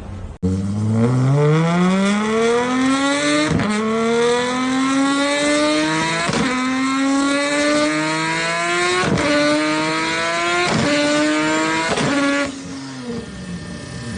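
A car engine accelerating hard through the gears, its pitch climbing in each gear with about five quick upshifts, each marked by a short sharp break. Near the end it eases off and the sound drops.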